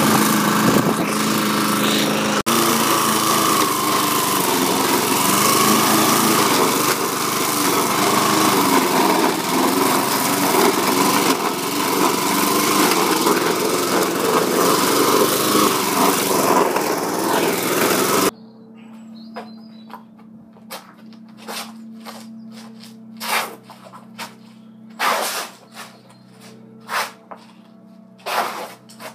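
Petrol lawn mower engine running steadily and loudly, then cutting off suddenly about two-thirds of the way through. Scattered light clicks and rubbing follow.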